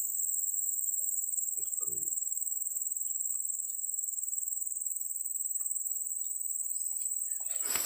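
Chorus of insects, crickets or cicadas, giving a steady high-pitched drone.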